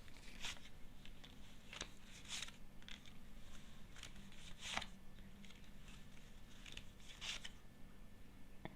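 Fortune-telling cards being handled, drawn and laid out: a handful of faint, brief rustles and snaps of card stock, several seconds apart.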